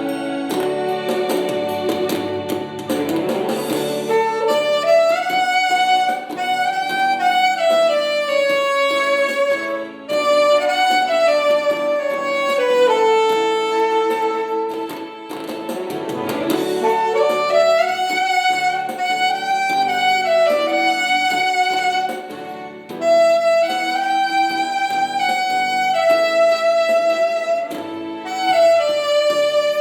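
Saxophone playing a slow melody of long held notes with smooth slides between them, over a backing track.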